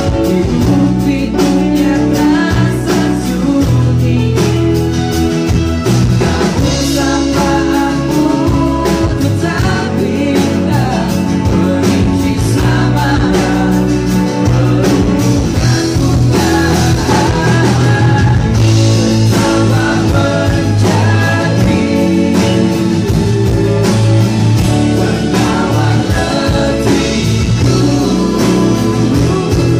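Live pop-rock band playing: a male lead voice singing over acoustic guitar, electric guitar, bass guitar and drums, with a steady beat.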